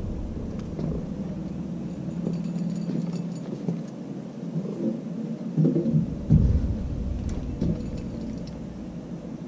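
Low rumbling of wind buffeting the microphone, swelling now and then, with a few knocks and thuds from the boat about halfway through as the man moves around on the bow.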